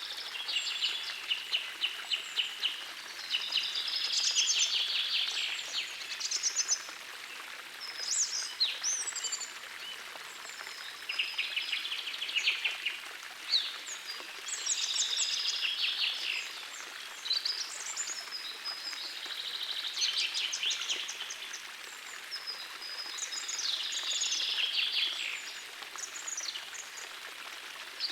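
Songbirds singing in rapid trilling phrases, a new phrase every few seconds, over the steady rush of a small forest stream.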